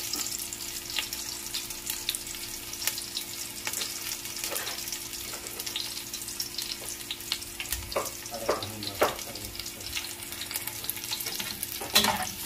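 Chopped garlic sizzling and crackling in hot cooking oil in a pot, with a metal spoon scraping and stirring in the pot near the end.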